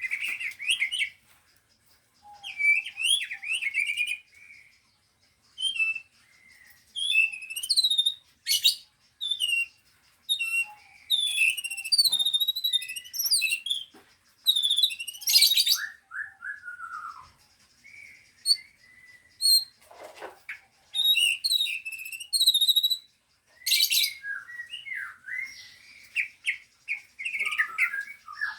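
Caged songbirds singing in short, varied phrases of whistles, chirps and rapid trills, with brief pauses between phrases.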